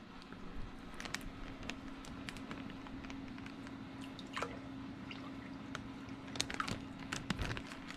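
Water dripping and trickling from a plastic bag into an aquarium, with scattered small drips and splashes, over a steady low hum from the tank's pumps.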